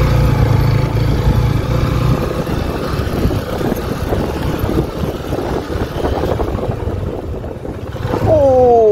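Honda CB150F motorcycle's single-cylinder engine running as the bike labours through deep, sticky mud, a steady hum at first, then rougher and more uneven. About eight seconds in, a loud pitched sound slides down and back up.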